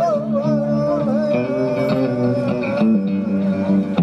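Live band music: guitars and bass play a sustained chord, and a long lead note wavers at the start and then holds steady.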